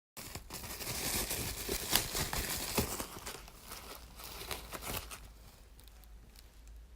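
Handling noise: crinkling and rustling with scattered sharp clicks, busiest for the first five seconds, then quieter.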